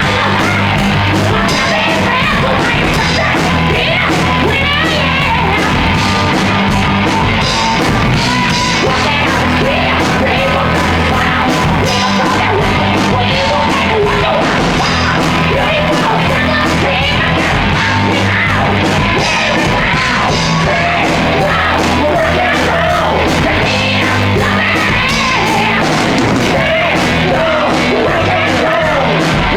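Loud rock song with yelled, shouted vocals over a full band, with a steady drum beat and held bass notes.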